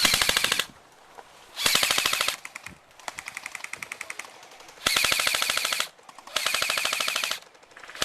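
Airsoft electric guns firing full-auto bursts: fast, even rattles of shots, four loud bursts each under a second long, with fainter fire from farther off in between.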